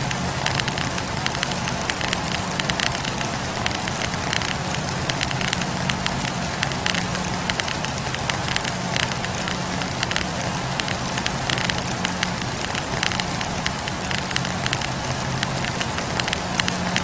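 Wood campfire burning: logs crackling with many quick, irregular snaps over a steady hiss and a low hum.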